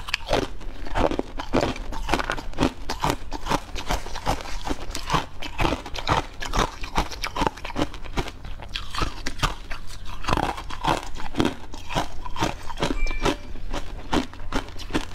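Close-miked chewing and crunching of a crisp food, a dense, irregular run of sharp crunches with bites in between.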